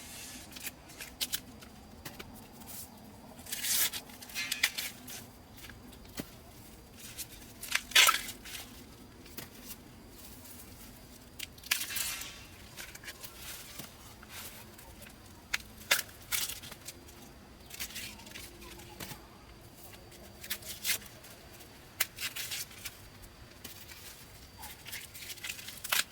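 Irregular crisp tearing and rustling noises, one every few seconds, with small clicks in between.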